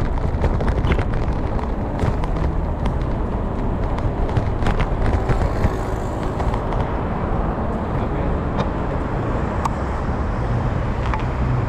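Steady low rumble of wind and road noise on a bicycle-mounted camera while riding, with scattered clicks and rattles from the bike.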